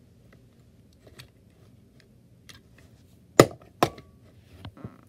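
Plastic push-button tap light pressed by a toy truck being shoved into it: two sharp clicks about half a second apart, a little after the middle, after some faint handling rustles on carpet.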